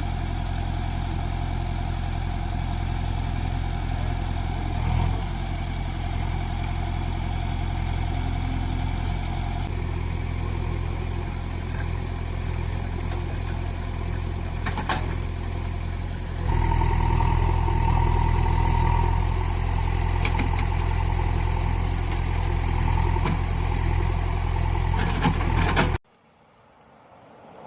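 A vehicle engine running steadily, growing louder about two thirds of the way in, then cutting off abruptly near the end.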